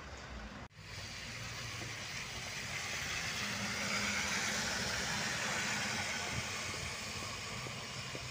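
City bus passing close by on a wet road: its engine and tyre hiss build to a peak about four seconds in, then ease off as it pulls away.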